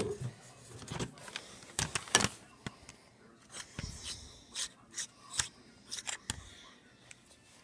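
A lamp being handled by hand: a string of irregular small clicks and knocks with soft rubbing scrapes in between.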